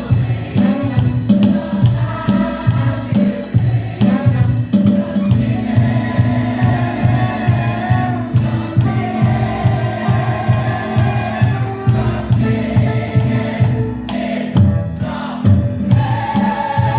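A group of voices singing together over an upbeat band accompaniment with a steady, regular bass beat.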